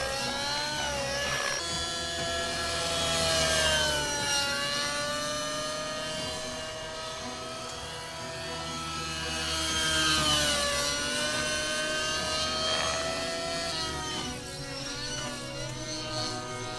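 Align T-Rex 600 Nitro Pro RC helicopter in flight, its nitro engine and rotors whining steadily. The pitch slides down and back up as it flies past, and it grows loudest about three to four seconds in and again about ten seconds in.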